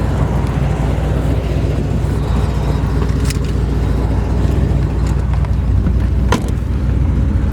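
1969 Corvette's 350 V8 running steadily, with two short sharp clicks about three seconds apart.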